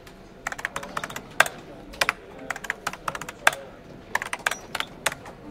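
Typing sound effect: an irregular run of key clicks, starting about half a second in, as a line of text is typed out.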